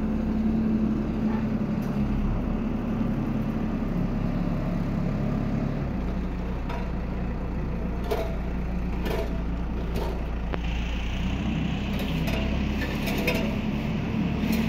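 Caterpillar telehandler's diesel engine running as the machine drives with a load raised on its boom, a steady hum whose pitch shifts a few times. A few sharp knocks come about halfway through.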